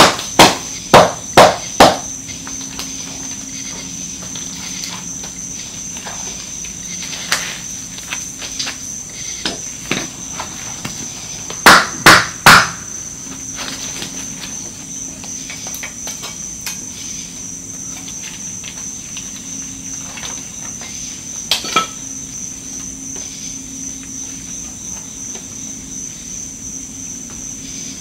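Plaster investment mold being chipped and broken off a cast aluminum piece with a metal tool: a quick run of five sharp knocks, scattered lighter knocks, then three more sharp knocks about twelve seconds in and a last light pair later on. A faint steady high-pitched whine sits underneath.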